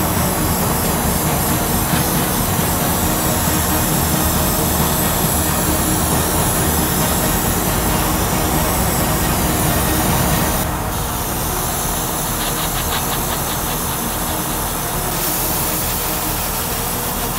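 Airbrush spraying paint: a steady hiss of air with a low steady hum beneath it. About eleven seconds in the sound drops a little and changes in texture.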